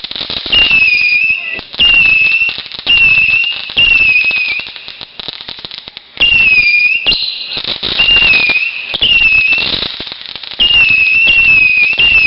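Consumer fireworks shooting off one after another, roughly one a second. Each shot gives a shrill whistle that dips slightly in pitch, over crackle, with a short pause about halfway through.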